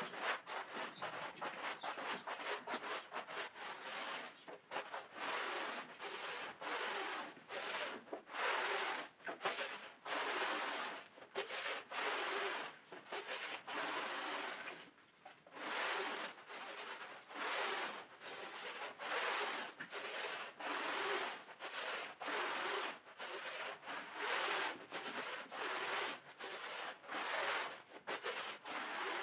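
Long-handled scrubber pushed back and forth over a soapy, muddy rug, making repeated rasping strokes about once a second, with a short break around the middle.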